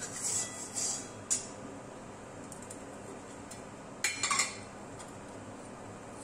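Metal spatula scraping around the inside of a wok of oil, ending with a sharp clack about a second in as it is set down against the pan. About four seconds in, a few metallic clinks as a steel spice box with small tins is picked up.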